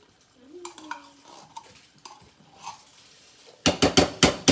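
Quiet stirring and scraping of a spoon in a pot of tomato meat sauce. Near the end comes a quick run of loud, sharp metal knocks, about six a second, as the spoon is rapped against the cookware.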